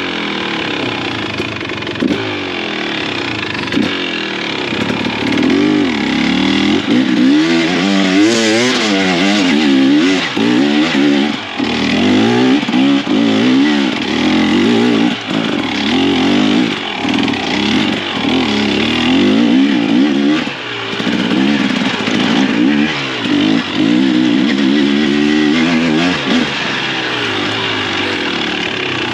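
Two-stroke engine of a KTM 300 XC TBI enduro dirt bike, heard from the rider's position, revving up and down again and again as the throttle is worked over rough trail, with quick rises and falls in pitch through most of the stretch.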